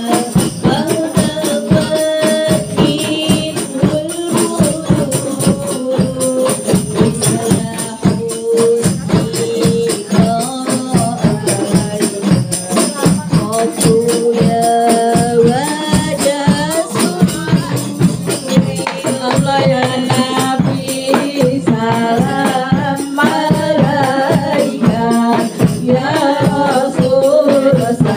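A women's habsyi group singing sholawat, Islamic devotional songs praising the Prophet, with a lead voice on a microphone and the group joining in. A steady beat of hand-struck rebana frame drums runs under the singing.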